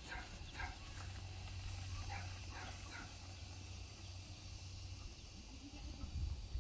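Short animal calls, about eight of them in the first three seconds, over a steady low rumble.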